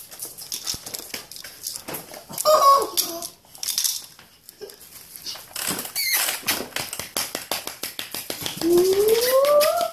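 Pomsky puppies scampering and playing on a hardwood floor: many quick clicks and knocks of claws and toys, with a short pitched yelp a few seconds in and a long rising vocal call near the end.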